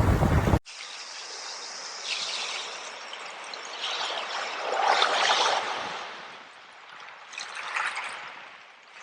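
Loud wave-and-wind noise breaks off abruptly about half a second in. Trickling, splashing water follows, swelling and easing several times, strongest about five seconds in.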